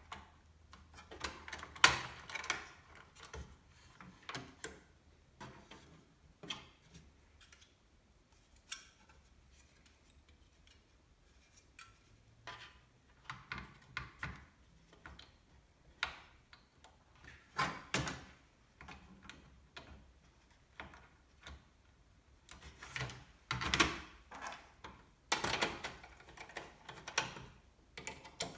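Computer parts being handled and fitted during a PC build: irregular clicks, taps and short scrapes, with a longer rustling scrape near the end.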